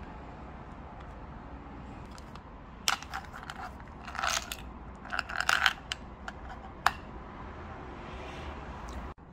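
Small plastic Halls XS candy case being handled and opened: a sharp click, then two short bursts of rattling clicks as the hard candies shift inside and one is shaken out, and a last single click.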